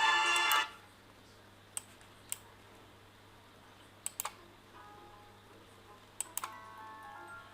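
A melodic background music track stops abruptly just under a second in; several sharp computer clicks follow, singly and in pairs, and another music track then comes in faintly about five seconds in.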